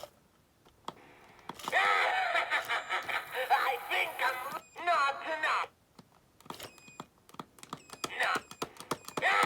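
Singing skeleton animatronic's small speaker playing its garbled, warbling song-voice in bursts, with a run of quick mechanical clicks from its motor in the gaps. Its sound chip is glitching, giving the distorted 'demonic' voice.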